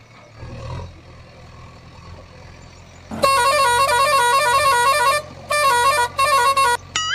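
Battery-powered toy vehicle's sound chip playing a tinny electronic tune, starting about three seconds in and breaking off twice. Near the end it switches to a warbling siren tone. Before the tune there is only a low steady hum.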